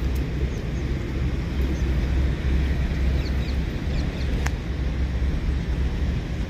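Steady low rumble with a few faint high chirps and one sharp click about four and a half seconds in.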